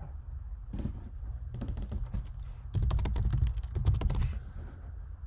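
Typing a word on a computer keyboard: short runs of keystrokes, the longest and loudest about three to four seconds in.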